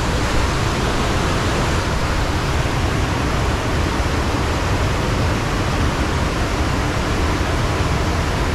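A steady, loud rushing noise with no breaks, heaviest in the low end.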